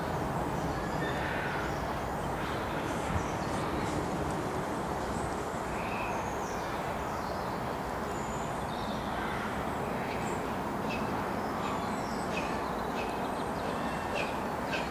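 LNER A4 Pacific steam locomotive 60019 Bittern running slowly as a light engine, a steady low rumble and hiss, with faint bird chirps in the second half.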